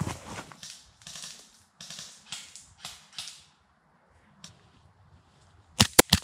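Hurried rustling steps through leaves and brush, about two a second, then a pause with a single click. Near the end an HK45 gas-blowback airsoft pistol fires four sharp shots in about half a second.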